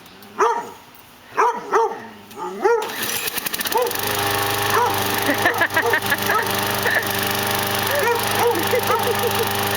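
A dog barks repeatedly at a lawn mower. About three seconds in, the mower's engine starts and then runs steadily while the dog keeps barking over it.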